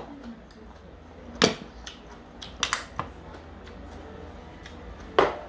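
Stainless steel ladle clinking against a metal pot and bowl while soup is ladled out: about five sharp metallic clinks, the loudest about a second and a half in and near the end.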